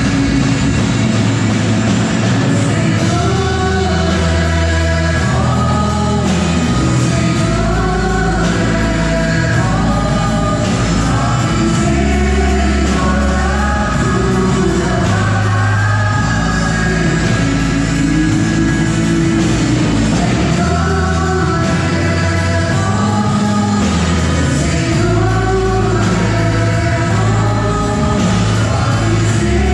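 Gospel worship song: singing over a band with a steady beat and long, heavy bass notes.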